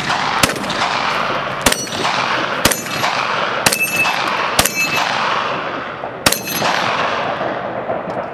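Six gunshots fired one at a time, about a second apart with a longer pause before the last, each followed by a long echo dying away.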